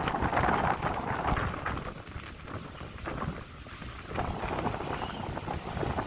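Wind gusting on the microphone: an uneven rumbling rush that eases about two seconds in and picks up again a little after four seconds.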